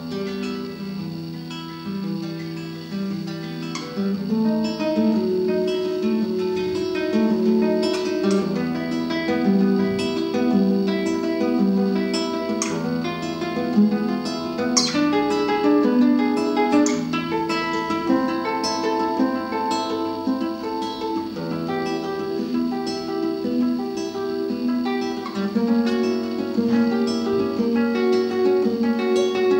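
Acoustic guitar playing an instrumental piece, plucked notes and chords in a flowing melody.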